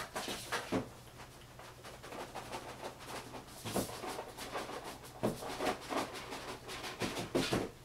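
Cardboard collectible box being handled: the inner box slid out of its printed outer cardboard sleeve, with scattered short scrapes and light knocks.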